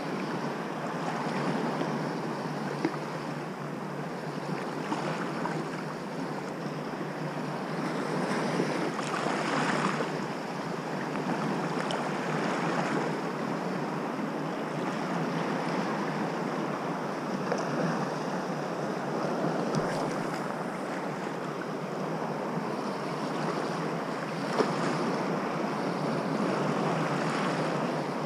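Small sea waves washing over a shallow rocky shore, swelling and easing every few seconds, with wind on the microphone. A couple of short sharp clicks stand out, one a few seconds in and one near the end.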